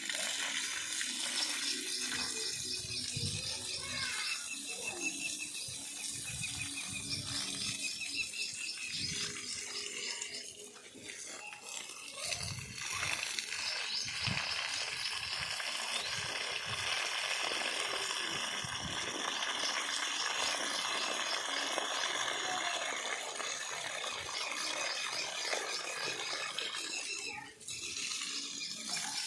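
Water pouring and splashing onto plants, a steady rushing wash. Short runs of rapid high chirping trills come and go over it.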